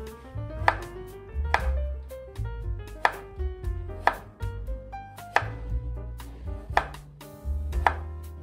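Chef's knife slicing a daikon radish on a wooden cutting board, the blade knocking on the board in irregular strokes about once a second, with fainter cuts between.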